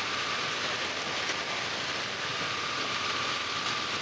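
Steady rain falling, an even hiss, with a faint steady high tone under it.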